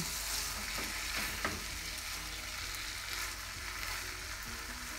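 Corn vermicelli with vegetables sizzling in a granite-coated wok as it is stirred, with a couple of soft strokes of a silicone spatula about a second in.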